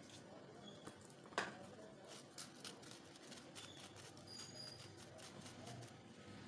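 Faint tapping and scratching of a wire-mesh sieve as flour is sifted into a glass bowl, with a spatula later pressing the flour through the mesh. One sharper tap comes about a second and a half in.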